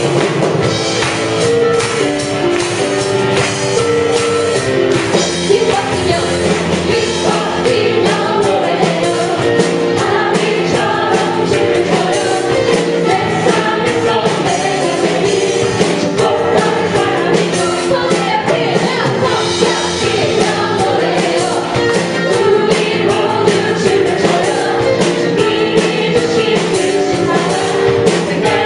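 Live praise band playing an upbeat worship song, with singers and guitar over a drum kit.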